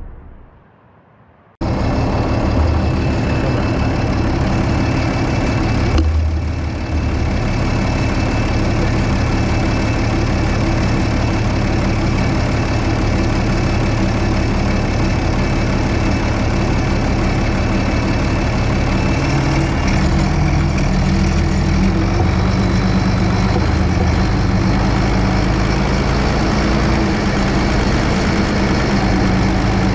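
Ursus 1224 Turbo tractor's turbocharged diesel engine running steadily, heard from the cab; it cuts in about a second and a half in, after a fading boom.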